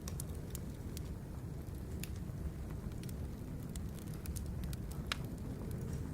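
Birch firewood burning, crackling with scattered sharp pops over a steady low rush; one louder pop about five seconds in.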